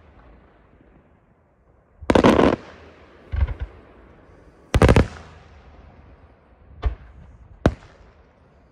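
Daytime fireworks shells bursting. After about two seconds of relative quiet comes a rapid cluster of reports, then a couple of lighter pops, a loud bang near the middle, and two more single sharp bangs toward the end, each trailing off with an echo.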